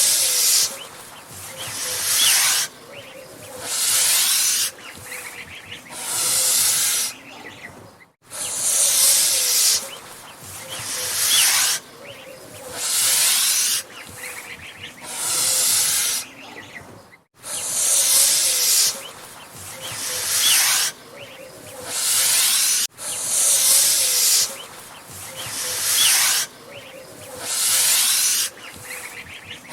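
Angry goose hissing: a long, breathy hiss repeated about every two seconds, each lasting roughly a second.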